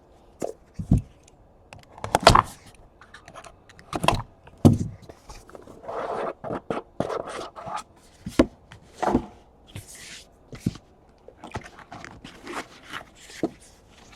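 Trading cards being handled on a table: scattered sharp taps and clicks, with a longer sliding scrape about six seconds in as cards are shuffled through and set down.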